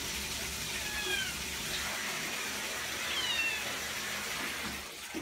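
Cat mewing twice, two short, high, thin calls that fall in pitch, about a second in and again just after three seconds, over a steady rush of water.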